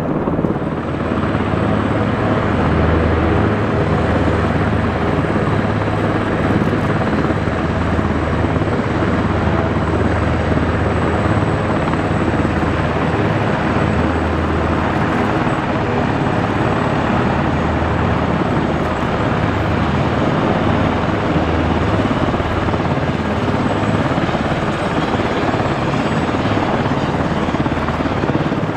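Loud, steady aircraft noise with a strong low rumble that barely changes in level.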